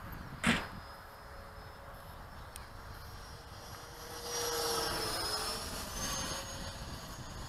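Electric ducted-fan model jet (Hobbyking T-45 Goshawk with a 12-blade fan) flying, a thin whine over airy hiss that swells louder about four seconds in, its pitch sagging briefly before it eases off a little. A sharp thump about half a second in.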